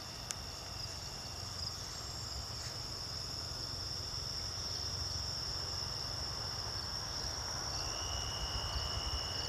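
Evening insect chorus: a steady high-pitched trill, joined by a second, lower-pitched trill about eight seconds in.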